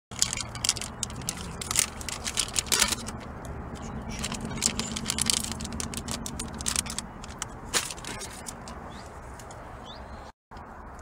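Rustling and crackling handling noise: things and fabric being moved about, with many sharp crackles and scrapes, busiest for the first eight seconds or so and quieter after.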